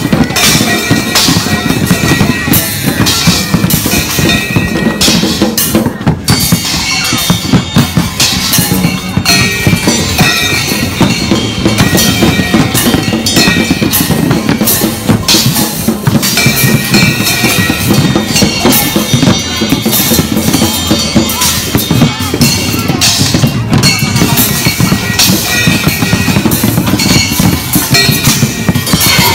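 Children beating on a set of drums and hanging cymbals with sticks: a steady loud clatter of uneven drum hits and cymbal clashes.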